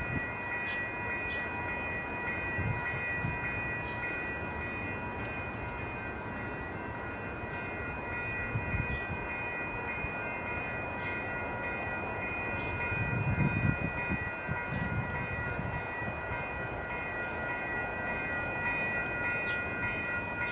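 Railroad grade-crossing warning bell ringing steadily while an Amtrak passenger train rolls away over the tracks with a low rumble that swells briefly about two-thirds of the way through.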